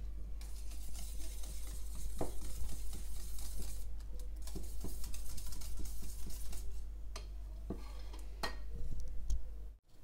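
Wire whisk beating a runny egg and milk mixture in a stainless steel bowl: a fast, continuous scraping clatter of the wires against the metal, with a brief pause about four seconds in. Near the end the stirring slows to a few separate taps against the bowl.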